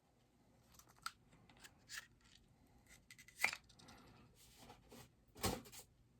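Cardboard and plastic packaging handled as a bobblehead is taken out of its box: scattered rustles and small clicks, a sharp click about three and a half seconds in, and a thump about five and a half seconds in.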